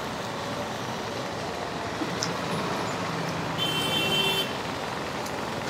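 Steady street traffic noise from passing motorbikes and auto-rickshaws, with a short high tone lasting about a second just past the middle.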